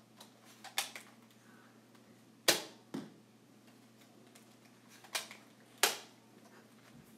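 Sharp plastic clicks and snaps of a Nerf Zombie Strike crossbow being cocked and fired, with a few faint clicks in the first second, then two pairs of loud snaps, each pair about half a second apart.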